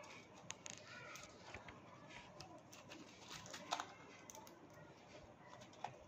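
Faint soft chatter and short chirps from a pair of budgerigars, with scattered light clicks while they preen; one sharper click comes a little under four seconds in.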